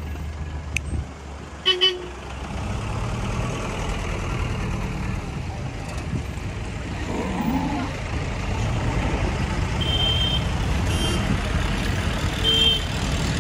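A truck engine running close by, a steady low rumble that grows louder about two seconds in, with a couple of short high horn toots in the second half.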